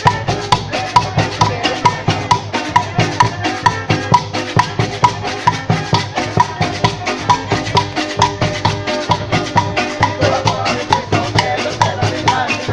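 Live folk music: a violin playing a melody over hand drums beating a steady, quick rhythm of about three strokes a second.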